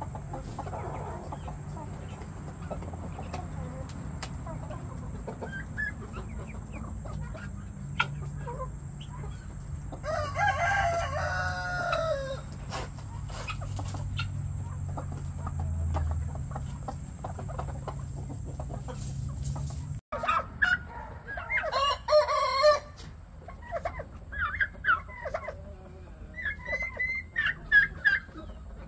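Backyard chickens clucking, with a rooster crowing once about ten seconds in for roughly two seconds. After a cut, poultry make many short high calls, with another long crow-like call a little after that.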